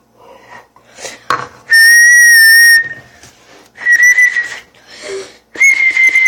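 Three loud, steady, high-pitched whistles. The first, about a second long, is the longest; the other two come about a second apart.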